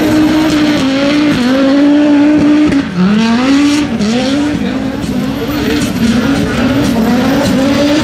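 Audi Sport Quattro S1 E2's turbocharged five-cylinder engine revving hard as the car drifts. The revs hold high at first, drop sharply about three seconds in, then swell up and fall back roughly once a second.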